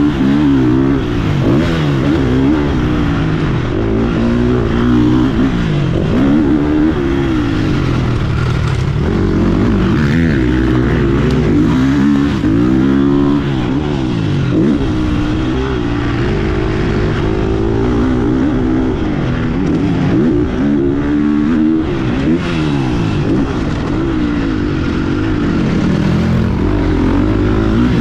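GasGas MC 350F four-stroke single-cylinder dirt bike engine being ridden hard on a motocross track, revving up and dropping back over and over through the corners and straights.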